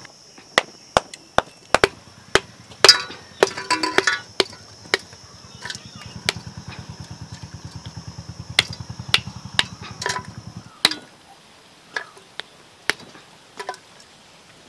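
A stone striking a block of ice frozen inside a plastic bottle: a run of sharp knocks as the ice cracks apart, followed by a few more knocks as the ice chunks are dropped into an aluminium pot.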